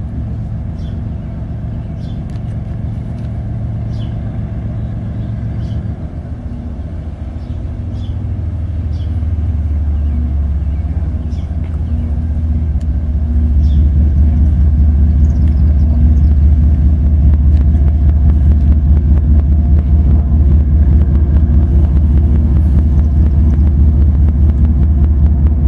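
Diesel-electric freight locomotives (a GE ES44AC leading) hauling a coal train, their engines rumbling low as the train approaches and growing louder, with a step up about halfway through. Faint regular ticks sound over the rumble in the first half.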